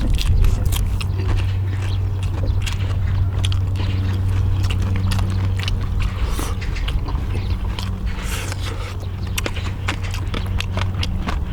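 People chewing and biting food, with many short clicks and smacks, over a steady low hum.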